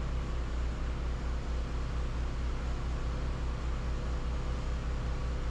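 A steady low machine hum with a fast, even pulsing underneath it.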